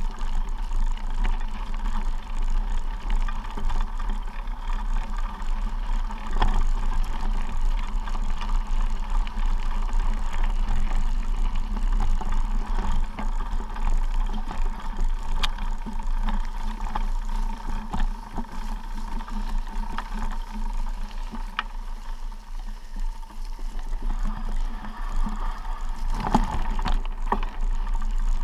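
Steady wind buffeting and rumble on the camera microphone from fast movement down a dirt forest trail, with a few sharp clicks and knocks.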